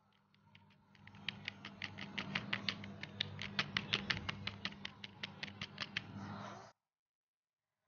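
Rapid, even clicking, about six sharp clicks a second over a low hum, cutting off abruptly near the end.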